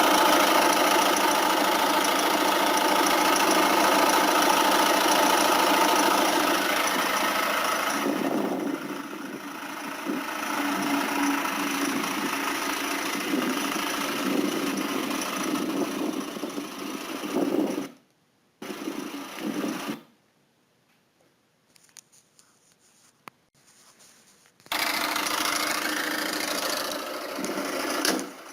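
Peugeot 407's 1.6 HDi diesel engine running, with a noise the owner has sent in to have diagnosed. The sound changes about eight seconds in. It breaks off to near silence twice in the second half, then comes back.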